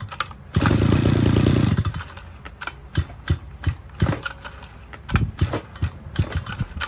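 Mitsubishi TL33 brush cutter's 33 cc two-stroke engine pull-started by its recoil rope: it fires and runs for about a second and a half, then stops. Light clicks and knocks from the starter follow.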